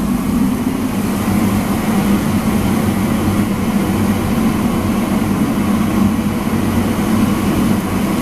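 Steady, loud machine drone with a low hum, typical of a large kitchen blower or motor running continuously.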